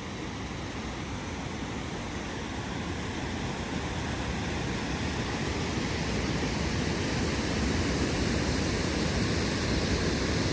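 Rushing water of the Low Force waterfall on the River Tees, a steady noisy roar that grows gradually louder.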